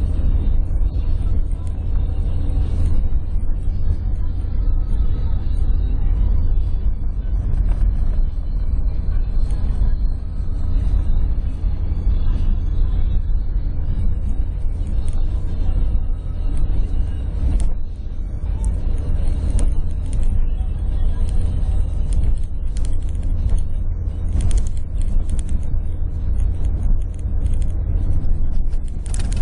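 Vehicle driving on a loose sand track, heard from inside the cabin: a steady heavy low rumble of engine, tyres and body, with scattered knocks and rattles from bumps that come more often in the second half.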